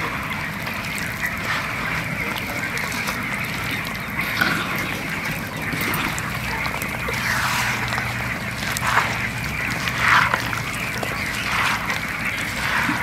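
Bare hands squelching and stirring oil-soaked karonda pieces and chili powder in a clay pot, a continuous wet mixing sound with a few sharper squishes near the end.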